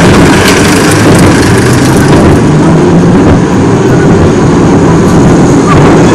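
Loud, steady rumble of a bee-themed fairground coaster car running along its steel track, picked up by a camera riding on the car, with wind buffeting the microphone.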